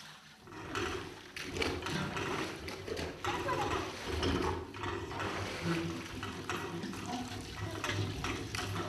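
Metal water pitchers clinking as women fill them with water at a village well. Repeated short clinks come over water splashing and pouring.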